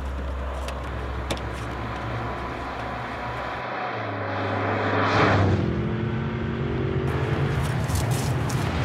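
Car engine running with a low, steady hum and a few light knocks near the start. About five seconds in, a car drives past, its noise swelling and fading while the engine note climbs as it pulls away.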